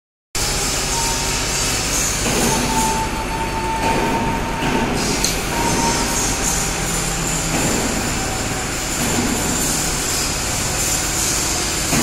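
Overhead crane running as it moves a suspended load, a steady mechanical rumble with a thin high whine that comes and goes during the first half.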